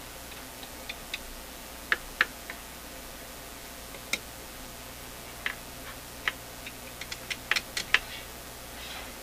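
Irregular light clicks and taps of a stick prodding at the wires and parts inside a vacuum-tube amplifier chassis. A few are scattered at first, then a quick run of them comes near the end.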